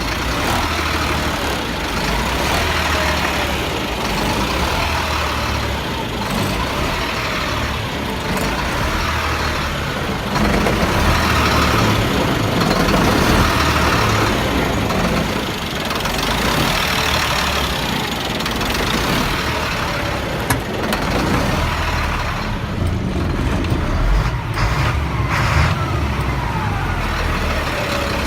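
Diesel engine of a 1999 Freightliner truck running, growing louder about ten seconds in and easing back about sixteen seconds in. The truck has a bad fuel pressure sensor, which causes hard starting and surging.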